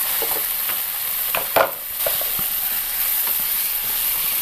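Wet masala sizzling in a nonstick wok, loosened with a little water and stirred with a wooden spatula; a couple of sharp scrapes of the spatula on the pan about a second and a half in.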